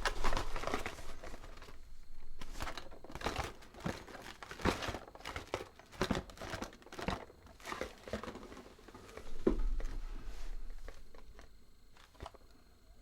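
Foil wrapper of a Kinder Surprise chocolate egg being crinkled and peeled off by hand, in irregular crackles that thin out near the end.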